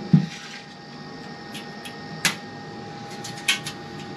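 Country Smokers Traveler pellet grill: a dull thump as the pellet hopper lid is shut, then a few sharp clicks, over the grill's steady mechanical hum with a thin whine.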